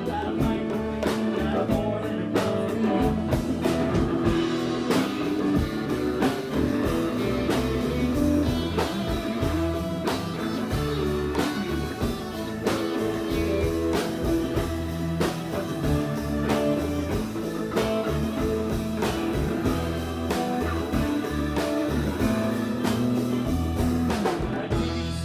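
A rock band playing an instrumental passage: guitar over bass and drums, with a steady beat.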